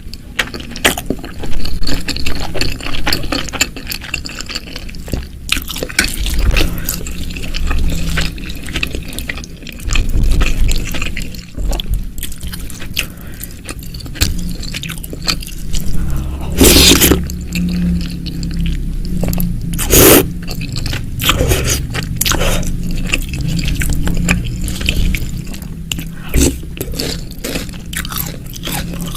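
Close-miked eating sounds from a bowl of bakso meatball soup: a utensil scraping in the bowl and wet, dripping, squishing broth sounds, with a run of small clicks. Two louder sharp strokes come about two thirds of the way through.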